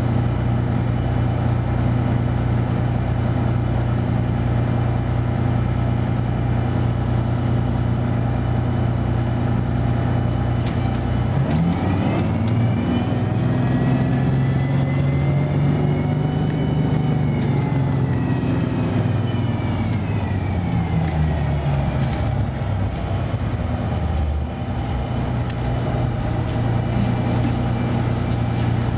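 Detroit Diesel 6V92TA two-stroke V6 of a 1995 Nova Bus Classic, heard from inside the bus: it idles steadily, then a little over a third of the way in revs up as the bus pulls away, its pitch rising, holding, then falling back until it settles to idle again as the bus stops.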